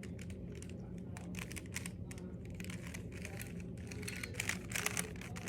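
Plastic Rubik's cube being twisted by hand: irregular clicks and clacks of its turning layers, coming in quicker runs about four to five seconds in.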